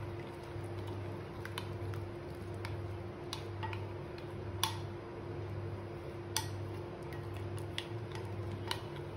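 Metal spoon stirring melted chocolate in a glass bowl, with scattered light clicks and scrapes as it knocks the sides, over a steady low hum.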